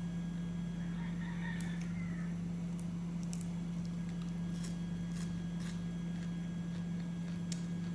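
Eating by hand: scattered sharp mouth clicks and smacks every second or so over a steady low hum. About a second in there is a brief high warbling call.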